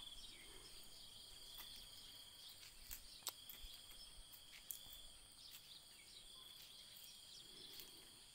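Near silence outdoors, with a faint, steady high-pitched chorus of insects and a few faint ticks.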